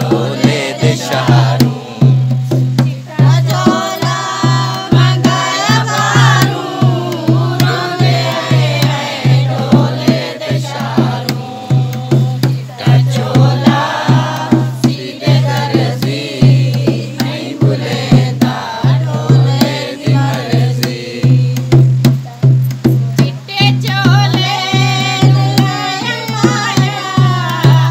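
Dholak, a two-headed barrel hand drum, played in a steady rhythm while women sing along.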